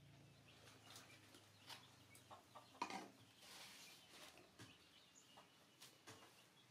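Near silence: faint room tone with a few soft clicks and a low hum that fades out about two seconds in.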